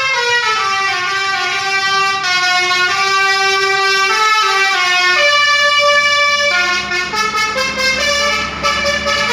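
Basuri 'telolet' bus air horn playing a tune: loud, long held notes that step up and down in pitch, changing about every one to two seconds.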